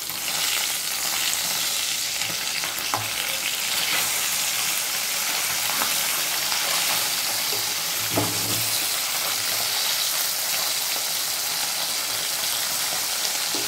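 Tangra fish frying in hot mustard oil in a kadai: a steady sizzling hiss. A few short clicks and scrapes of a spatula come as the fish are turned over.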